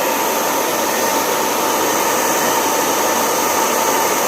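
PowerTech hand-held hair dryer running steadily on its cool setting: a loud, even rush of blown air with a steady whining tone from the fan.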